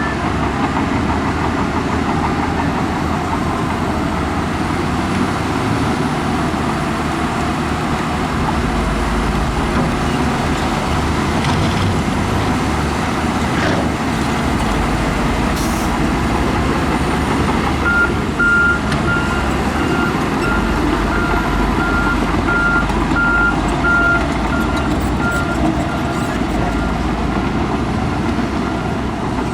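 Diesel engines of heavy earthmoving machines running steadily at work. A little past the middle, a machine's reversing alarm sounds about a dozen short beeps, roughly one and a half a second.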